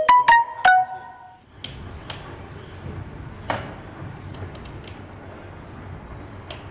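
Metal machine parts clinking as they are fitted by hand: four or five quick strikes in the first second, each leaving a short ringing tone, then a few scattered knocks and light handling taps.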